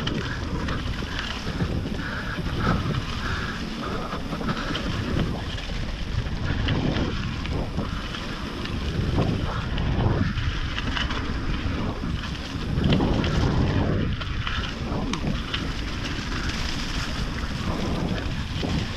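Wind buffeting the microphone as a mountain bike rolls down a wet trail, with the tyres' rushing noise and scattered knocks of the bike over the rough ground.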